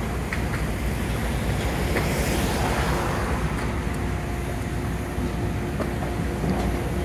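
High-reach demolition excavator working the top of a brick wall: a steady low diesel rumble with a faint steady hum, a few sharp knocks, and a broad rush of noise about two to three seconds in.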